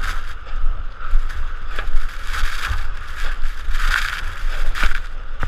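Blizzard wind blowing steadily, with gusts buffeting the microphone, and a few short crunches, like snow being trodden or shovelled, scattered through it.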